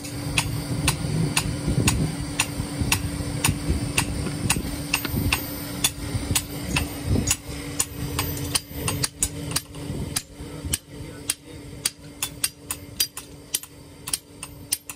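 Hammer blows on the end of a wooden axe handle, driving the handle into the axe head to seat it: a steady run of sharp knocks, about two to three a second. A steady low hum runs underneath.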